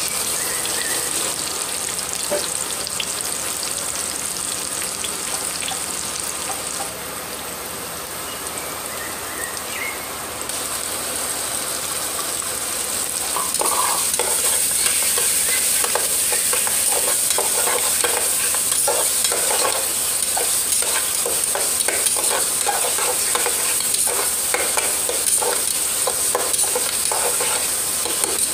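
Onions, potatoes and tomato frying in hot oil in a pressure cooker pot, sizzling steadily. From about halfway in the sizzling is louder, with a spatula stirring and scraping against the pot in many short strokes.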